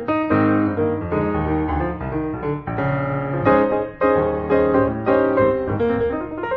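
Background piano music, many notes played in a flowing line.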